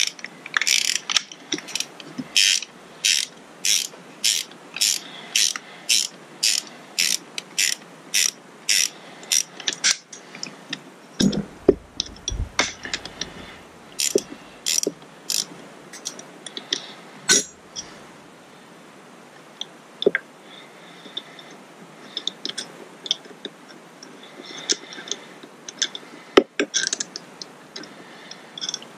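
Hand socket ratchet clicking steadily, about two clicks a second, as a nut is turned. After about ten seconds the clicking stops and gives way to a few clunks of a metal part being handled and set down, then scattered light clicks.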